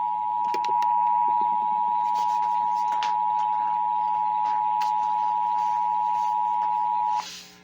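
Emergency Alert System attention signal: the steady two-tone alert tone (853 and 960 Hz together), cutting off suddenly about seven seconds in. It announces the spoken severe thunderstorm warning that follows.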